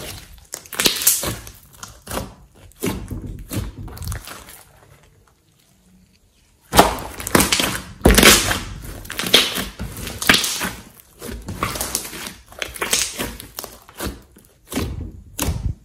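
Thick, glossy slime being squeezed, pressed and pulled by hand, giving irregular wet clicks and crackling air-bubble pops. The sounds come in clusters, with a pause of about two seconds near the middle.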